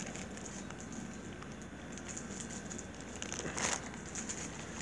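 Faint crinkling of a thin clear plastic bag as a toy car in it is handled, with one louder rustle about three and a half seconds in.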